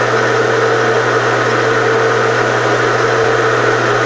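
Bridgeport milling machine running with a steady, even hum, its spindle turning while the edges of the part are picked up to find centre.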